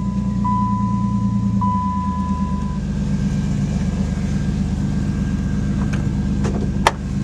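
Pontiac Firebird engine idling steadily just after starting. A steady high warning chime sounds over it for the first few seconds, and a few sharp clicks come near the end, the loudest about seven seconds in.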